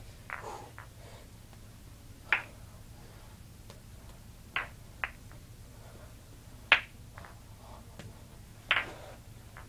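Juggling balls slapping into bare hands: about six short, sharp catches at irregular gaps of one to two seconds, over a faint steady low hum.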